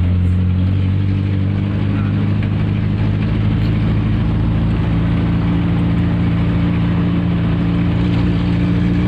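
An engine running steadily at constant speed, a deep even hum over a steady rushing noise.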